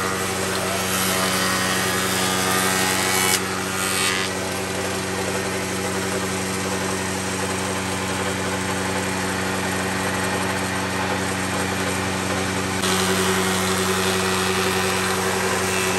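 Bench spindle moulder running with a steady motor hum, its spinning cutter machining the edge of a hand-fed wooden board with a continuous rushing hiss. There is a brief louder burst about three and a half seconds in, and the sound gets louder about thirteen seconds in.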